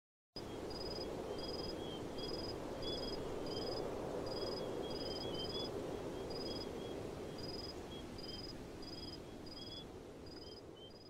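Faint outdoor nature ambience: a soft noise bed with short high insect-like chirps repeating about one to two times a second and scattered lower bird-like chirps. It fades in just after the start and fades away near the end.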